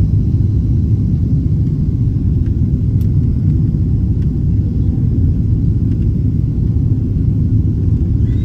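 Steady low rumble of a Boeing 777 economy cabin: engine and airflow noise heard from a window seat. A faint click comes about three seconds in.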